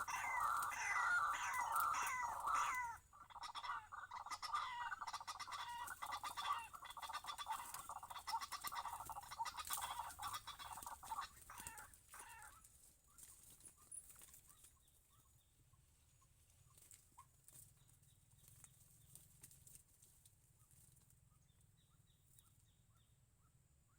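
White-breasted waterhen (ruak-ruak) calling over and over, several calls a second, strong for about the first half and then thinning out to faint, scattered notes.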